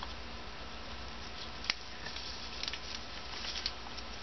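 Small handling noises of gloved hands and a small tool working on a TD04-9b turbocharger's oily center housing: light rubbing and rustling, one sharp click about a third of the way in, then a cluster of small ticks, over a steady low hum.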